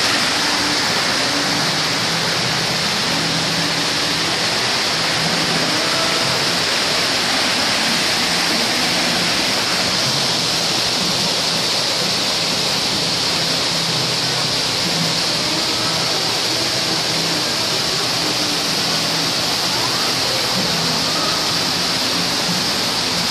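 Water pouring and splashing steadily in a stone fountain channel: an even, unbroken rushing hiss.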